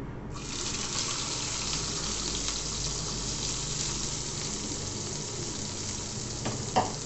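Sliced onions and green chillies hitting hot oil with cumin seeds in a frying pan, starting to sizzle suddenly about a third of a second in and frying with a steady hiss and small crackles. A single sharp knock near the end.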